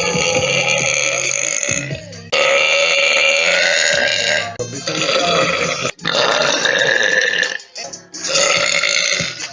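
A woman belching loudly, a string of long burps, each one to two seconds, with short breaks between them.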